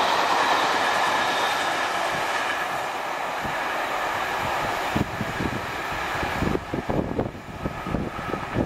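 Passenger coaches of a steam-hauled train rolling past on the rails, a steady wheel-on-rail noise that slowly fades as the train draws away. From about five seconds in, irregular gusts of wind buffet the microphone.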